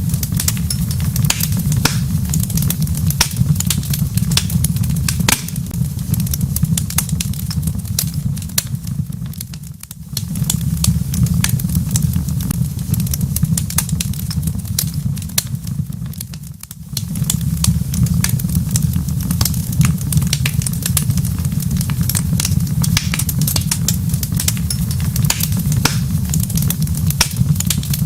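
Wood fire crackling in a fireplace: a steady low rumble of the flames with frequent sharp pops and crackles. The sound briefly drops away twice partway through.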